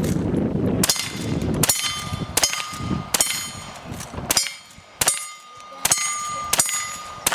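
A string of about nine gunshots, roughly one every 0.8 s, each followed by the ringing of a hit steel target plate: a cowboy action shooter firing at steel targets.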